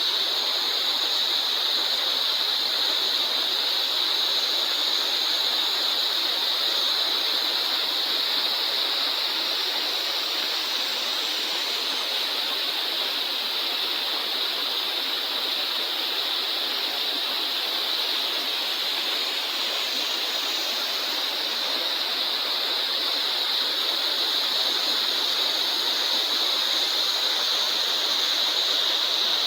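Steady rushing of a waterfall, the water falling and running on without a break.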